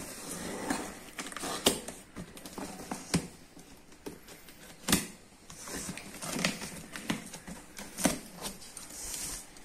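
Small box-cutter knife slitting the packing tape along the seam of a cardboard shipping box. The blade scrapes and rasps through the tape, with several sharp clicks and taps on the cardboard at irregular moments.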